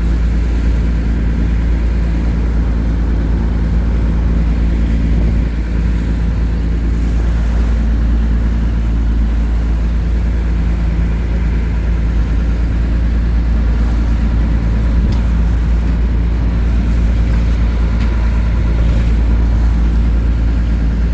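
Charter boat's engine running steadily under way, with a strong low rumble and an even, unchanging hum.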